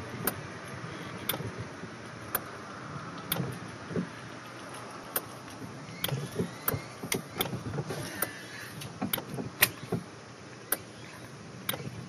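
A small bass being reeled to a small boat on a frog lure, splashing briefly at the surface, with sharp clicks about once or twice a second over a steady low water and wind noise. The loudest click comes about three-quarters of the way through.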